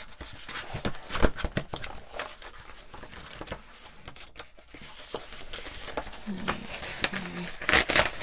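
Paper and packaging being handled: rustling and crinkling, a string of short clicks and crackles that thins out around the middle and picks up again towards the end.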